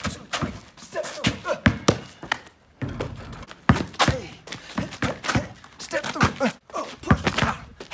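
Basketball being dribbled hard on an asphalt driveway: a fast, uneven run of sharp bounces as a combination of dribble moves is worked through.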